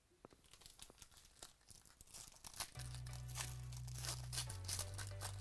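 Foil wrapper of a 2019 Prizm Baseball card pack being torn open and crinkled by hand: quick, sharp crackling that grows busier over the second half. Low background music comes in about halfway through.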